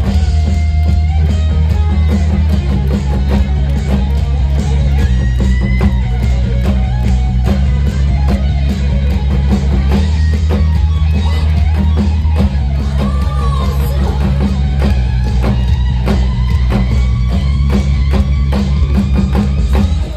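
Loud K-pop–style band music under a Korean traditional-music fusion song, electric guitar over a drum kit keeping a steady beat, with no singing; it stops abruptly at the end.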